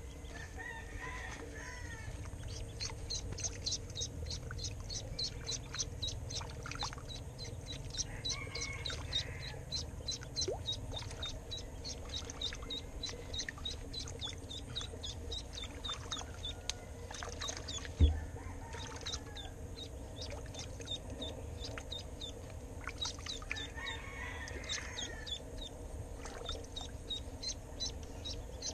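Duckling peeping in runs of quick, regular high peeps, several a second, while it hangs on a fishing line as live bait for snakehead. A few lower chirps and one low thump about eighteen seconds in.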